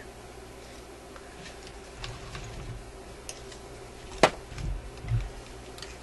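A metal jukebox selector chassis being handled and shifted on a workbench: light clicks and rattles, one sharp metallic click a little after four seconds in, then two dull thumps as it is set down. A steady low hum runs underneath.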